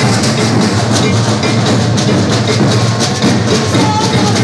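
Maracatu percussion group playing a dense, steady drum rhythm.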